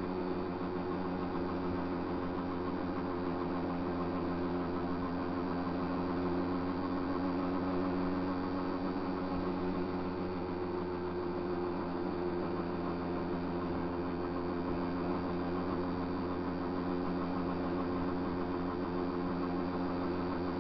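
Small motorcycle's engine running at a steady pace while riding, a constant drone that holds one pitch throughout.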